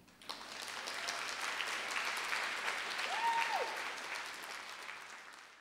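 Audience applauding, with one brief high note rising and falling from someone in the crowd about three seconds in; the applause fades out near the end.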